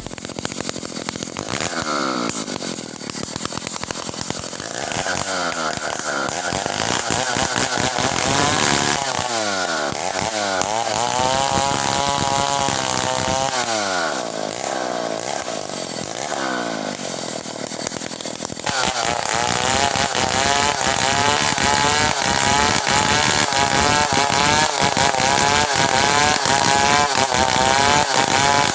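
Stihl 070 two-stroke chainsaw revving up and down repeatedly, then about two-thirds of the way in running louder and steady at high speed under load, as when the bar bites into the wood.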